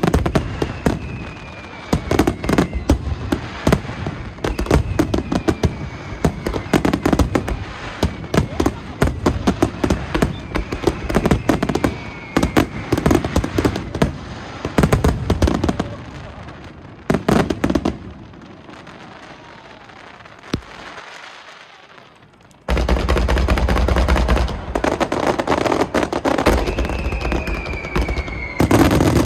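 Star mine fireworks barrage: rapid launches and bursts of aerial shells with crackling and several falling whistles. The bursts ease off into a lull about two-thirds through, then resume as a denser, heavier barrage.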